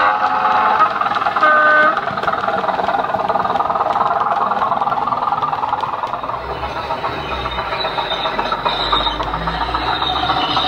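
Model Class 205 'Thumper' DEMU's DCC sound decoder playing the diesel engine running sound through a small speaker, with two short horn blasts in the first two seconds.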